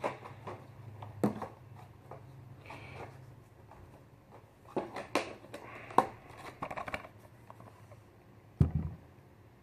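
Handling noises from toy-car packaging: scattered clicks and rustles, then a single dull knock near the end.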